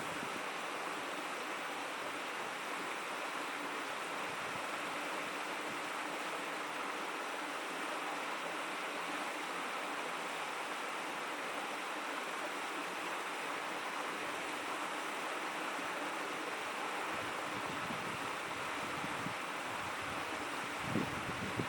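A shallow stream babbling steadily, an even rush of running water. A couple of brief low bumps come near the end.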